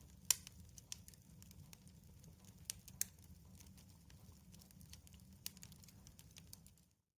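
Faint, irregular sharp ticks and crackles over a low steady hum, cutting off suddenly near the end.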